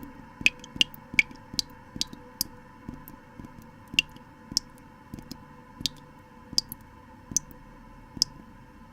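Water drops falling one at a time in an uneven series, about fifteen short, bright drips, over a faint steady hum.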